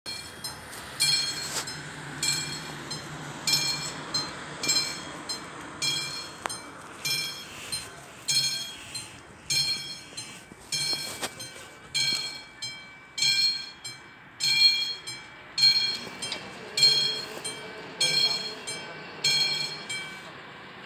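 Railway level-crossing warning bell ringing in even, bright strikes about once every 1.2 seconds, signalling that the crossing is closed for an approaching train. The ringing stops shortly before the end.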